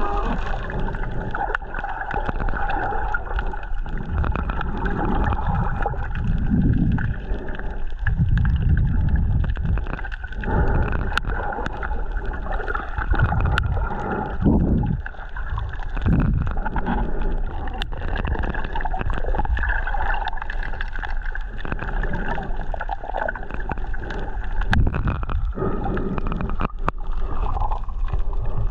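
Water sloshing and gurgling in swells every second or two, with scattered sharp clicks.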